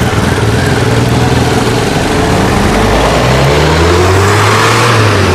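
Car engines driving past on a street. About three seconds in, one engine rises in pitch as it accelerates.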